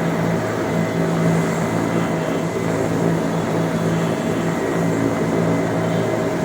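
Helicopter running: a loud, steady drone of engine and rotor noise with a few constant tones through it.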